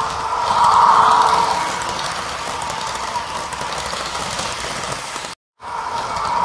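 HO-scale Fleischmann ICE model train running on its track: the electric motor's steady whine with the rattle of wheels over rail joints, swelling about a second in. The sound breaks off briefly near the end and starts again.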